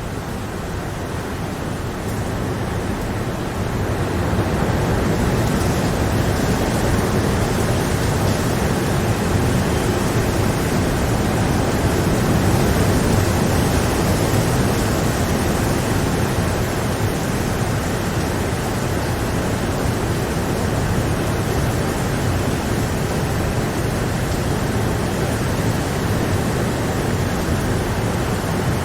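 Steady rainfall, an even rushing hiss that swells louder about four seconds in and then holds.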